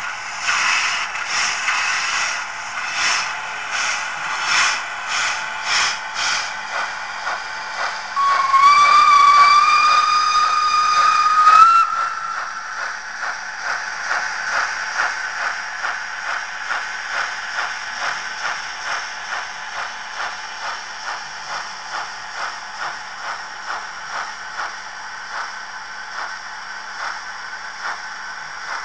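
Sound-decoder steam effects of a model steam locomotive: regular steam chuffs, broken by one long whistle blast that rises slightly in pitch, from about eight seconds in until about twelve. The chuffing then goes on quieter and steadier as the locomotive creeps along.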